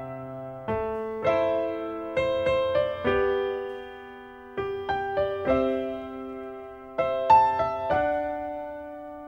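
Slow, gentle piano music: notes and chords struck every second or so and left to ring out and fade.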